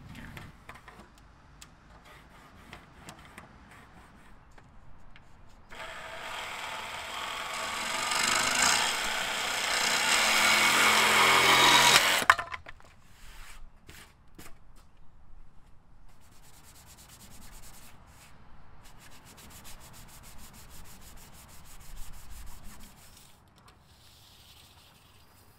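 Cordless Makita jigsaw cutting across the end of a cedar tongue-and-groove plank, running about six seconds, growing louder, then stopping suddenly. Lighter clicks and rattles of handling tools and boards come before and after.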